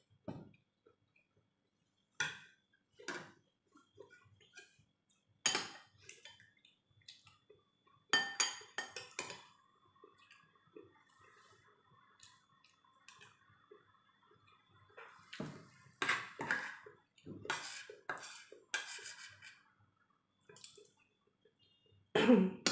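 Metal spoon clinking and scraping against a ceramic plate and bowl during a meal, in irregular short knocks and clicks, loudest near the end as the spoon scoops from the bowl.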